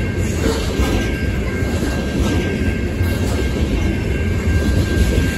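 Loaded coke hopper cars rolling past on the rails: a steady, heavy rumble of wheels on track, with a faint steady high tone.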